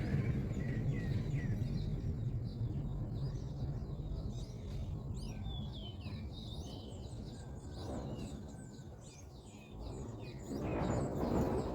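Small birds giving many quick, high chirps and short sliding calls over a steady low rumble of outdoor noise. Near the end a louder rushing noise rises.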